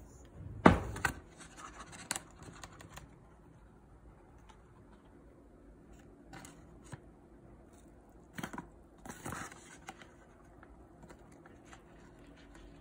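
Kitchen handling of a plastic bag of oat powder and a spoon while the powder goes into a glass mug of almond milk. A sharp knock about a second in is followed by rustling and scraping, quieter ticks, and a second burst of scraping and tapping about two-thirds of the way through.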